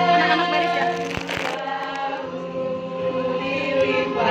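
Children singing a slow song together in long held notes, with a brief rustle of handling noise a little after a second in.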